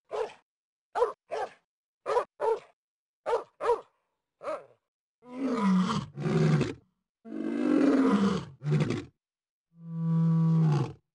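Short dog yaps, mostly in quick pairs, for the first four seconds or so, then three longer, deeper drawn-out animal calls that slide down and up in pitch.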